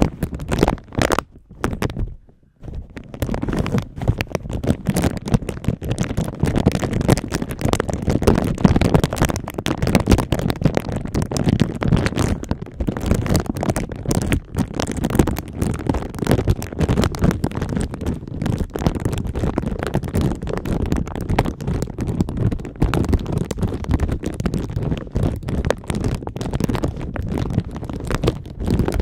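Clear plastic bag crinkled and scrunched between two hands right up against a microphone: dense, continuous crackling with a short break about two seconds in.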